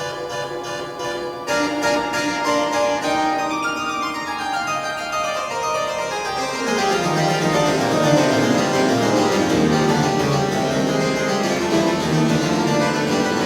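Restored historic church pipe organ playing: a run of notes stepping downward, then fuller chords as bass notes come in about halfway through.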